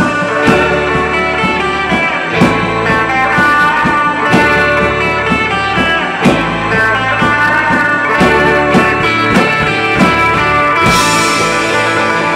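Live rock band playing: electric guitars over bass guitar and a steady drum-kit beat.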